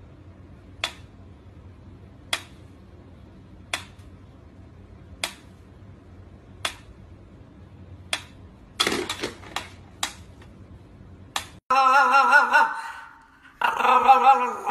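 Mechanical pendulum metronome ticking slowly, about one sharp tick every second and a half, then a quick cluster of rattling clicks and knocks as it is pawed. About three seconds from the end a French bulldog starts a loud, drawn-out, wavering howl, breaking off briefly once.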